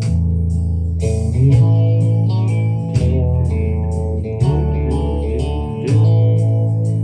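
Instrumental break of a country song: guitar playing a lead line with bent, gliding notes over sustained bass notes and a steady beat, with no singing.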